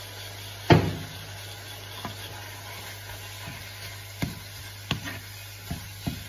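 Minced beef and red onion sizzling in a non-stick frying pan while a cooking spoon stirs it, knocking against the pan about five times. One loud knock comes just under a second in.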